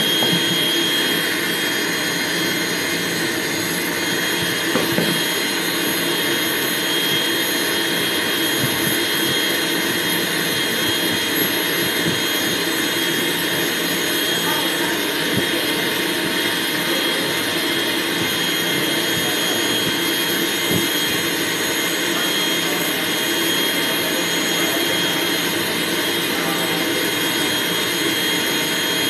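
Pet grooming dryer running steadily, a constant rush of air with a steady high whine on top.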